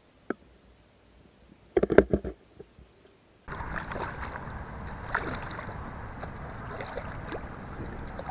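A few sharp knocks and rattles on a fishing kayak about two seconds in, then a steady hiss of wind and water that starts abruptly partway through.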